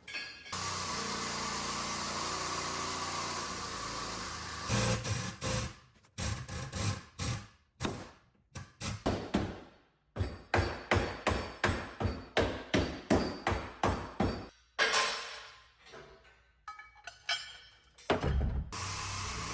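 Hammer strikes on metal, about two to three blows a second for roughly ten seconds in the middle, with steady noise before and after.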